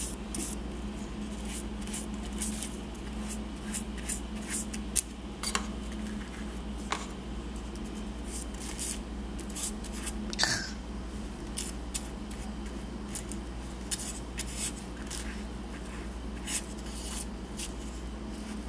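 Stiff-bristled paintbrush scrubbing glue onto a seashell: a run of short, irregular scratchy strokes as the bristles drag over the shell and the paper under it.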